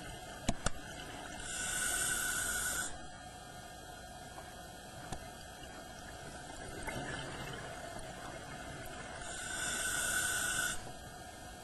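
Scuba diver breathing underwater through a regulator: two hissing rushes of exhaled bubbles, each about a second and a half long and about eight seconds apart, with a softer inhalation hiss between them, over a steady hum. Two sharp clicks sound about half a second in.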